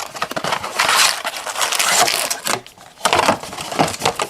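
Blaster box of trading-card packs being torn open and handled: crackling, tearing packaging noise for a couple of seconds, then two short rustles near the end.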